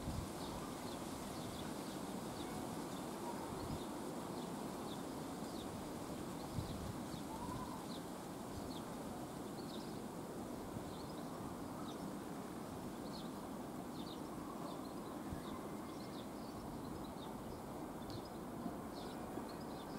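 Class 66 diesel-electric locomotive, with its two-stroke V12 engine, running in the distance as it approaches with a freight train: a steady low rumble. Birds chirp over it throughout.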